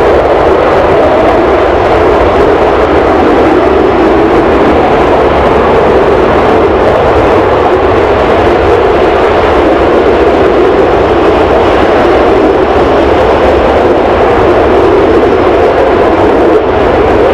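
Panavia Tornado jet's twin engines running loud and steady, a dense jet noise with a low rumble beneath that hardly changes in level or pitch.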